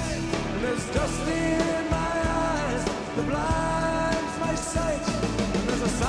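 Rock music soundtrack: held, gliding melody notes over a steady beat, about one beat a second.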